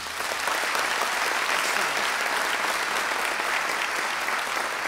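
Audience applauding steadily after a speech.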